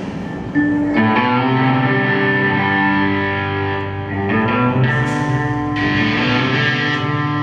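Live band playing an instrumental passage led by electric guitar, its held, layered notes coming in about half a second in, with a few short bursts of cymbal-like hiss.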